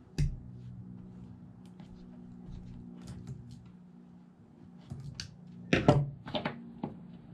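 Hand tools and speargun shooting line being handled on a wooden tabletop: a sharp snip just after the start as excess line is cut with pliers, scattered small clicks, and a louder clatter of pliers set down on the table about six seconds in, over a steady low hum.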